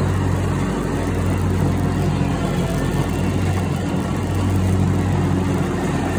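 Scag stand-on commercial mower's engine running at a steady speed while mowing, a constant low drone.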